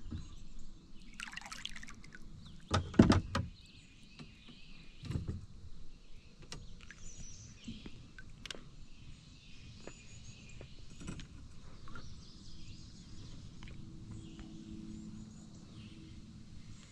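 A few sharp knocks and thumps against a kayak, the loudest about three seconds in, with scattered lighter clicks while a caught bass is handled. Birds chirp faintly in the background.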